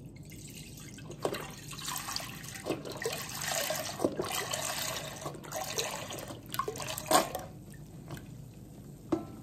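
Milk pouring from a one-litre carton into a large stainless steel pot: an uneven, splashing stream into the milk already in the pot, thinning out about seven and a half seconds in.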